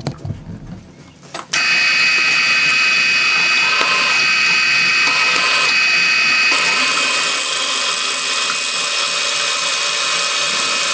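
Hand-held power tool running steadily at a high pitch, starting abruptly about a second and a half in.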